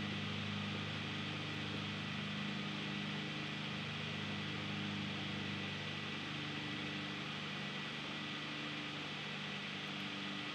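Steady low hum of several tones under an even hiss, with no distinct events.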